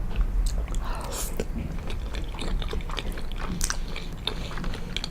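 Close-miked chewing of penne pasta: many small irregular wet mouth clicks and smacks.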